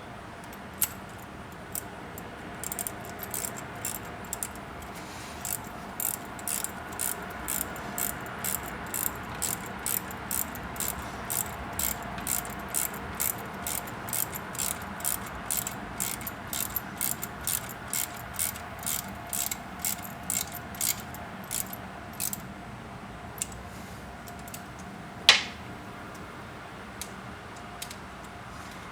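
Socket ratchet wrench clicking in a steady rhythm of about two to three clicks a second for some twenty seconds as a nut on the alternator is worked down, then one louder metallic clank near the end.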